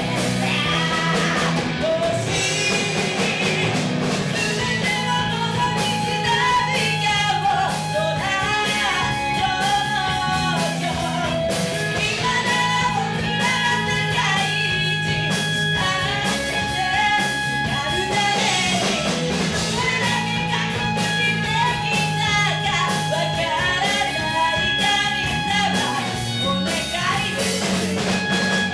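Live rock band playing a song, with a woman singing lead over electric guitar, electric bass and drums.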